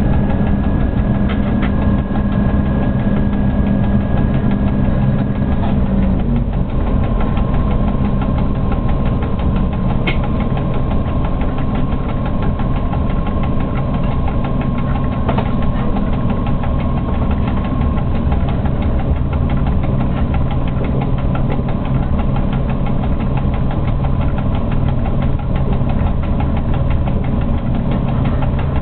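Steady running noise in a freight locomotive's cab as the train rolls slowly along, with a constant rumble and humming tones. A low hum and a high whine stop about six seconds in, and another hum carries on.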